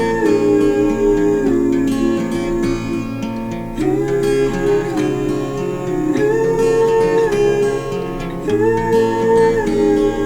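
Background music: an instrumental passage of a song led by strummed acoustic guitar, with the chords changing every couple of seconds.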